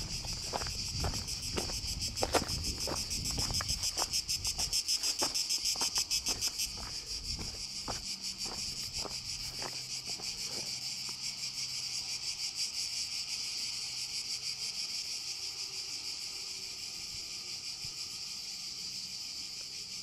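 Cicadas buzzing in a dense high chorus with a fast pulse, loudest a few seconds in and easing off after about seven seconds. Footsteps on a stony trail tick through the first half and stop about ten seconds in.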